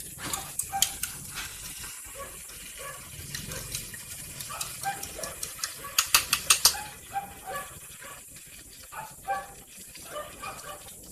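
A metal fork clinking and scraping against a glass bowl as beaten egg is poured out of it into a pan, with a quick run of about six clinks a little past halfway. A steady hiss of the pan cooking runs underneath.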